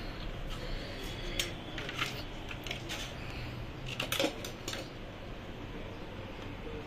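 Light clicks and clatter of hard parts being handled as a stereo microscope is moved about by hand on a workbench. There is a scatter of clicks in the first half and a louder cluster about four seconds in, over a steady low electrical hum.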